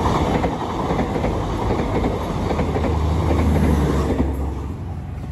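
Airport train (KA Bandara) passing close by at a level crossing: the running noise of its wheels on the rails with a low steady drone underneath, starting suddenly and easing off from about four seconds in.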